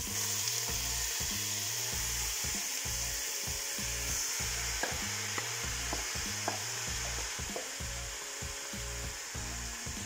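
Grated vegetables sizzling in hot oil in a stainless steel pot as they are tipped in from a bowl, a steady frying hiss with a few light clicks of the bowl and spoon.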